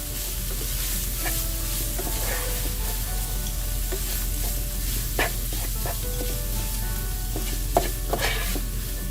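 Ground chicken, mushroom and rice filling sizzling steadily in a hot pan, with a few sharp clicks of a utensil against the pan about five seconds in and near the end.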